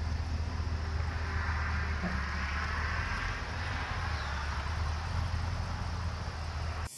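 Ford F-350 pickup engine running at idle while the truck rolls slowly, a steady low hum. It cuts off suddenly just before the end.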